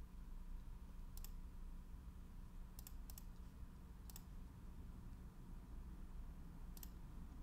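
Faint clicks of a computer mouse button, about five of them spaced irregularly, over a low steady hum.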